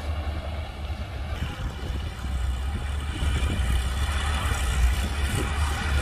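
Crawler bulldozer's diesel engine running under load with a deep, steady rumble; about a second and a half in, the sound changes abruptly and becomes louder and brighter, with more hiss and rattle on top.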